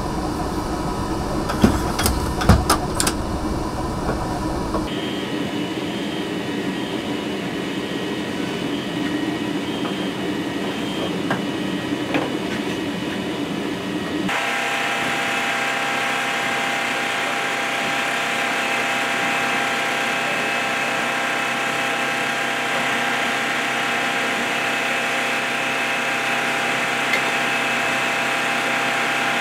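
Steady running noise of an AC-130U gunship's engines, with a few sharp metallic clinks early on as ammunition rounds are handled. About halfway through, the noise changes to a brighter, steady whine of several tones.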